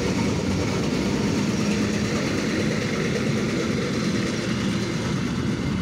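ER9M electric multiple unit running past close by: a steady rumble of wheels and running gear.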